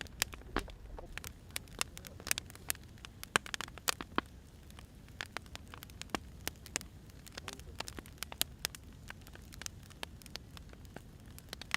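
Wood fire burning, with irregular sharp crackles and pops of the firewood, some louder than others, over a low steady rumble.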